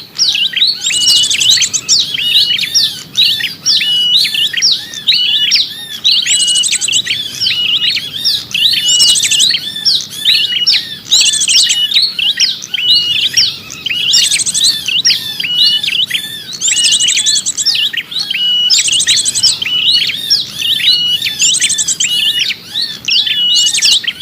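Small-bird lure call: a dense, continuous chatter of high chirps, with a short steady whistle and a fast, very high trill coming round again every couple of seconds.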